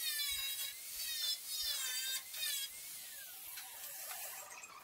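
Small angle grinder with an abrasive disc grinding clean the re-folded hem of a car bonnet's edge. Its high whine sweeps down in pitch about four times in the first three seconds, then goes quieter.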